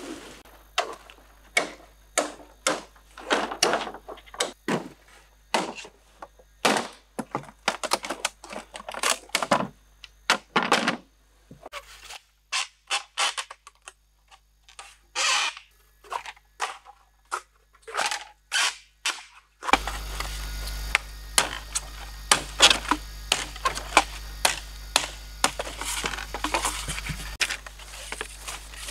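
Hollow knocks and clatter of bamboo poles being handled and set down. About twenty seconds in, a steady background hiss sets in under quick sharp taps of a machete working a bamboo pole on a log.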